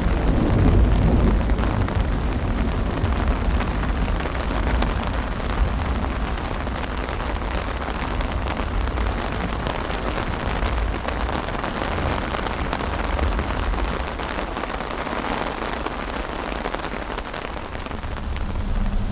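Steady rain ambience: an even hiss of rain falling on surfaces over a continuous low rumble, as in a dark, stormy atmosphere loop.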